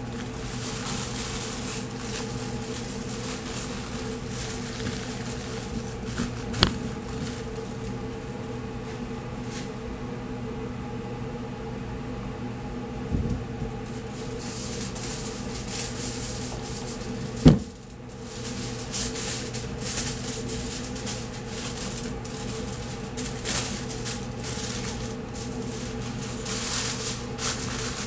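Aluminium foil crinkling and rustling as a brisket is wrapped by hand, over a steady electrical hum of kitchen equipment. The crinkling eases off for a while in the middle. There are two sharp knocks on the table, one about a quarter of the way in and a louder one a little past halfway.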